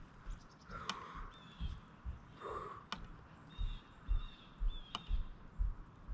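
Quiet outdoor ambience: a bird calling with a few short high notes in the second half, over irregular low rumbles and a few sharp clicks.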